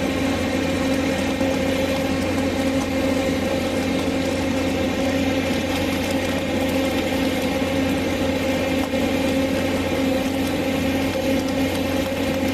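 Mobile flash butt rail welding machine running during the flashing stage of a rail weld: a steady machine drone with a constant hum and an even hiss over the top.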